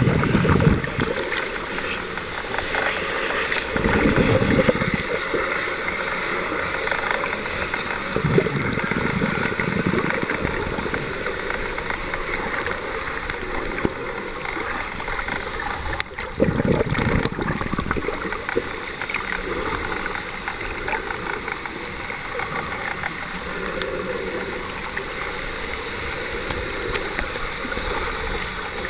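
Muffled water sloshing and gurgling around a camera held just under the surface, with a deeper swell of water noise every few seconds.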